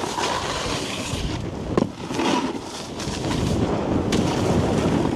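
Snowboard sliding and scraping over packed snow at speed, with wind buffeting the camera microphone. A short sharp knock just under two seconds in.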